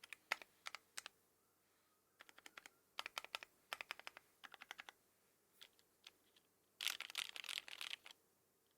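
Typing on an ai03 Equinox custom mechanical keyboard with housing-lubed Alpaca linear switches and GMK keycaps. Short bursts of keystrokes are separated by brief pauses, and a dense, rapid flurry of keystrokes comes about seven seconds in.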